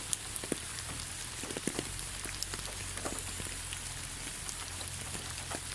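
Steady rain falling: an even hiss with many separate drops ticking close by, over a faint low steady hum.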